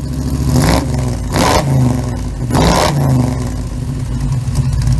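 An engine running with a steady low rumble, revved in three short bursts about a second apart.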